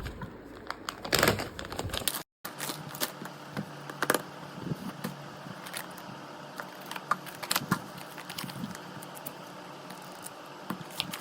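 Hands handling a smartwatch box and its packaging: rustling with scattered small clicks and taps, and a brief drop to silence about two seconds in.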